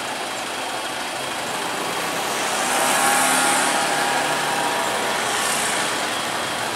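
Street traffic noise, with a vehicle engine rising in the mix about two and a half seconds in and fading again after a couple of seconds.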